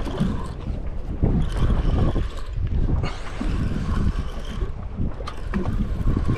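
Wind buffeting the microphone over water sloshing against a fibreglass boat hull, with a few irregular knocks.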